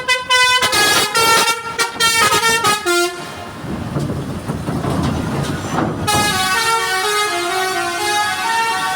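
Basuri melodic air horn on a PO Dewi Permata bus playing a quick tune of short notes, breaking off about three seconds in for a stretch of rushing vehicle noise, then starting another tune of longer held notes about six seconds in.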